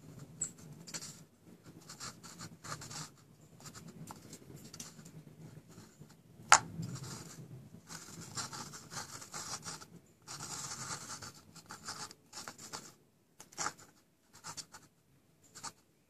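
3D-printed plastic BB-8 head being turned and shifted on its dome-shaped body: irregular scraping and rubbing of printed plastic on plastic in short spells, with one sharp click about six and a half seconds in.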